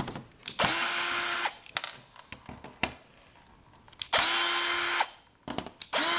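Craftsman power drill with a screwdriver bit backing screws out of a TV's rear cover, in short runs: two runs of about a second each, and a third starting near the end. Each run rises quickly in pitch as the motor spins up, then holds steady until it stops. Short clicks come between the runs.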